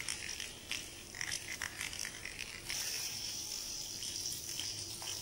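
Mustard seeds popping and crackling in hot coconut oil, with scattered sharp pops. About two and a half seconds in, a steady sizzle starts as curry leaves go into the hot oil.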